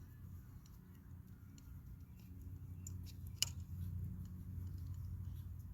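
Scattered small clicks of hand tools and fasteners being worked while a part on the e-bike is tightened, with one sharper click about three and a half seconds in, over a steady low hum.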